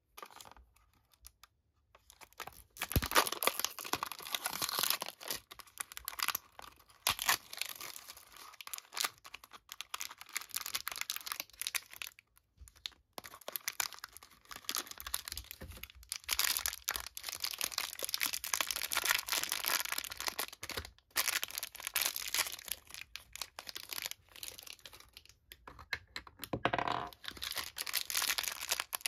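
A toy blind-bag package being opened by hand: the crinkly pink foil bag and its plastic capsule rustling and tearing in bursts with short pauses.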